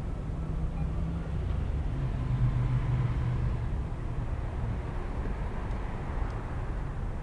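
Motor traffic going past, a steady engine hum and rumble that swells slightly about two to three seconds in.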